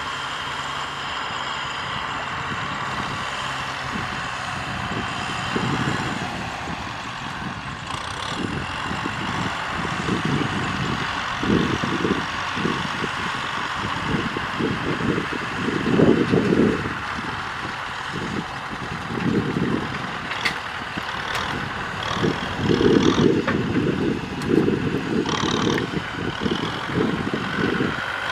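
Kubota M6040SU tractors' diesel engines running under load as their front blades push soil. The steady engine sound is broken by irregular low rumbling surges, strongest in the second half.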